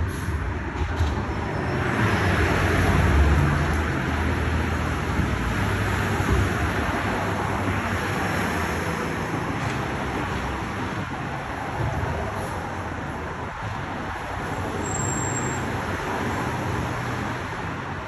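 Sanitation recycling truck's engine running, a steady low rumble mixed with street traffic noise that swells about two to three seconds in.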